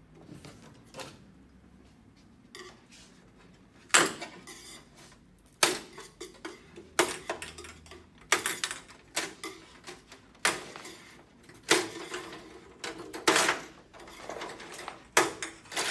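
LED backlight strips being prised off and handled on a TV's sheet-metal back chassis: a string of sharp metallic clicks and clatters, faint at first, then coming about once a second from about four seconds in.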